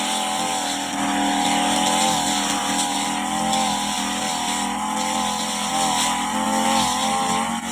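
Brush cutter engine running steadily at high speed, its pitch wavering slightly as it works.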